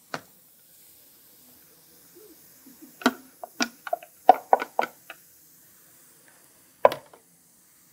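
Spoon knocking and scraping against a skillet as tempeh is stirred into sautéed onion, mushrooms and carrot. One sharp knock comes at the start, then a quick run of knocks and clicks in the middle, and one more near the end.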